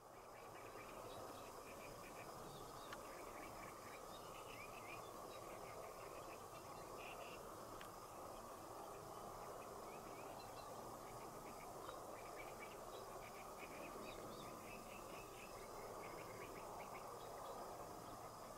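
Faint field ambience: small insects chirping in short, irregular clusters of high chirps over a steady low hiss.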